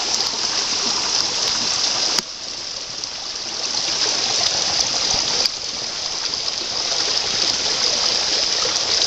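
Mountain stream running over rocks: a steady rushing hiss of water. The level drops suddenly about two seconds in and again about halfway through.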